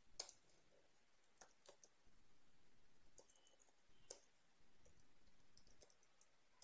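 Faint, scattered clicks of computer keys being typed: a handful of separate keystrokes, with a short cluster of them near the end.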